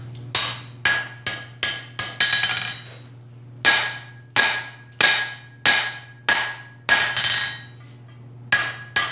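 Hand hammer striking a hot 5/8-inch steel bar on the anvil, the bar held over the anvil's edge, half on and half off, to forge a tong notch down to half its thickness. The blows come about two a second in three runs with short pauses between them, each blow with a bright metallic ring.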